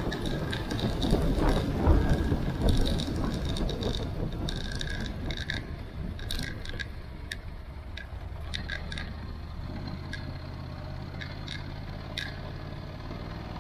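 Motorcycle engine pulling up a steep mountain lane, louder and rougher over the first few seconds, then settling to a steady low hum. Scattered sharp ticks and clicks run through it.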